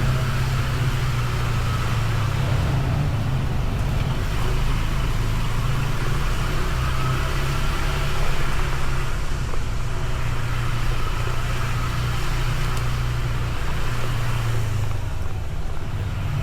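Honda ADV 160 scooter's single-cylinder engine running at a steady cruising speed while riding, with road noise.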